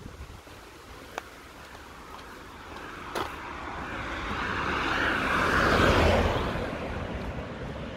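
A car driving past, its tyre and engine noise swelling to a peak about six seconds in and then fading. Two short clicks sound earlier, about a second and three seconds in.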